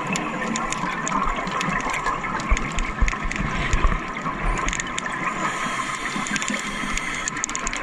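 Scuba divers' exhaled bubbles rushing and gurgling underwater. A steady hiss runs underneath, with many small sharp clicks scattered through it.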